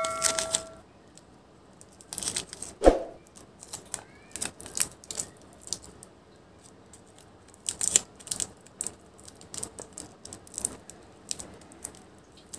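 Clear adhesive tape being handled and wrapped around a coaxial cable's connector end: scattered crackles and small clicks, with one louder knock about three seconds in. The tail of a ringing chime fades in the first second.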